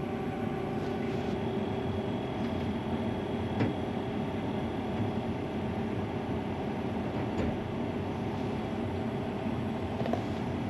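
Combine harvester running steadily, heard from inside the cab: an even drone with a constant hum and a few faint clicks.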